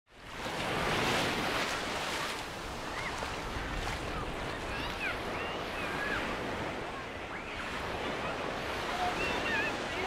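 Small waves breaking and washing up on a sandy shore, a steady surf wash that fades in over the first second. Faint scattered voices of people on the beach rise above it now and then.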